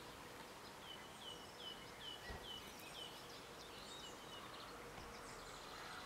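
Faint bird song: a run of about seven short, quick high notes repeated evenly, then a few scattered chirps, over a low background hiss.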